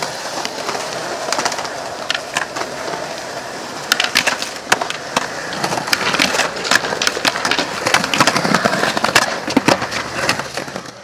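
Skateboards rolling on concrete, with many sharp clacks of boards popping, landing and hitting ledges; the clacks come thick and fast from about four seconds in.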